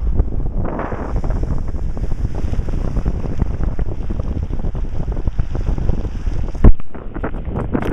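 Wind buffeting the microphone over the rumble of a moving vehicle, a dense, steady noise with a hiss that rises about a second in. A single loud thump comes near the end.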